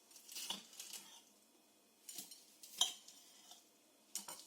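Knife chopping lettuce against a cutting board: a few separate knocks, the loudest a little after the middle.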